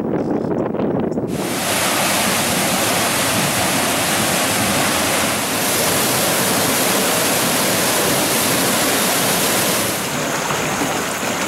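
Wind rushing over the microphone: a loud, even hiss that sets in sharply about a second in and eases slightly near the end.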